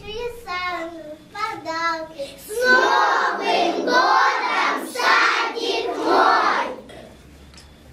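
Young children's voices singing: a single child's voice for about two seconds, then many children singing together in four loud phrases, which stop about a second before the end.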